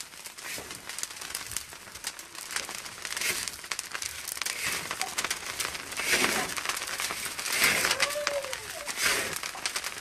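Dense fine crackling of wet salt roasting in a pan over a cactus-and-brush fire, with a few louder scraping swells as the worker turns the salt.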